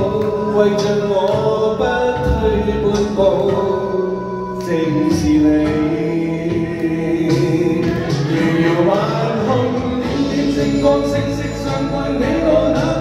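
A man singing a song into a microphone over backing music with a beat.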